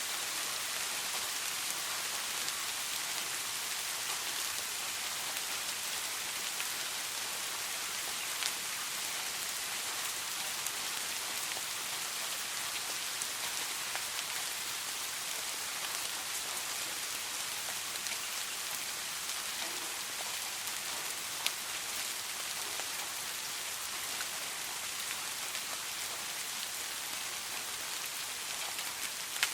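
Steady soft rain falling, an even hiss of many small drops, with an occasional single drop ticking louder.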